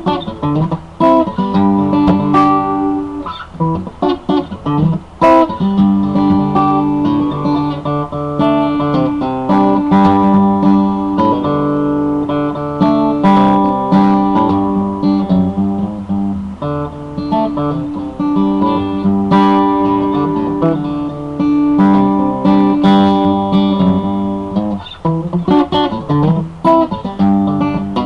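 Instrumental music with a plucked-string, guitar-like sound: chords and melody notes, each starting sharply and ringing on, with no singing.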